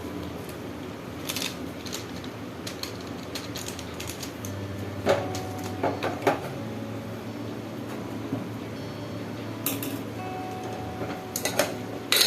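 Metal cooking utensils clinking and tapping against a pot now and then, over a steady low hum that comes up about halfway through.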